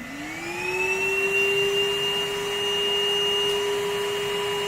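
Cordless stick vacuum cleaner's motor spinning up, its whine rising in pitch over about the first second, then running at a steady pitch.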